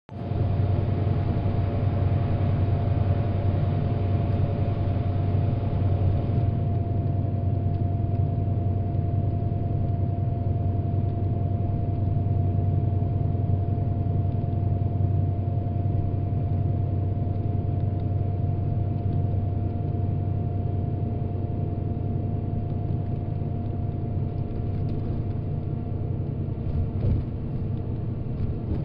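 Cabin noise of a bus cruising on an expressway: a steady low engine and road rumble with a faint steady whine. For the first six seconds or so the noise is louder and hissier, echoing in a road tunnel, and then it eases as the bus comes out into the open.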